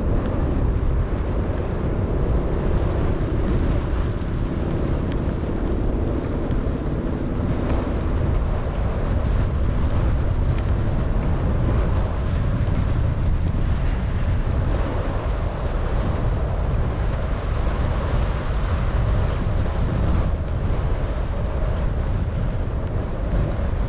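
Steady low rumble of wind buffeting the microphone outdoors, with a faint steady hum in the first several seconds.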